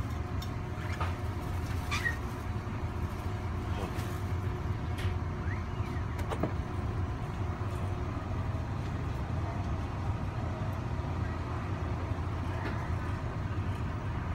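Steady low rumble inside a carriage of a TEMU2000 Puyuma Express tilting electric train, with a few faint clicks and squeaks from the car's fittings.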